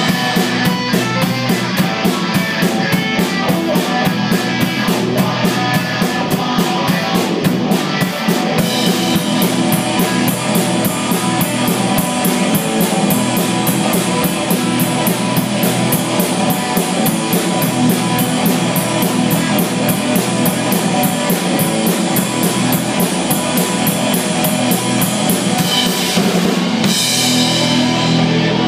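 Live rock band playing an instrumental passage: distorted electric guitar, electric bass and a drum kit, with cymbals keeping a fast, even beat.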